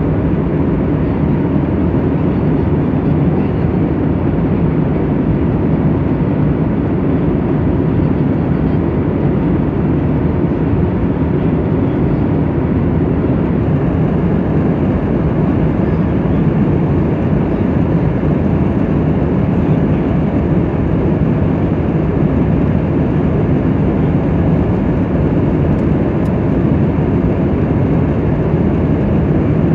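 Steady, even cabin noise of an airliner in flight at cruise altitude, heard from inside the cabin.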